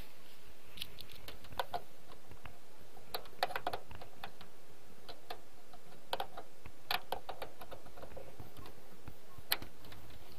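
Computer keyboard keys clicking in short, irregular runs of typing, with pauses between them.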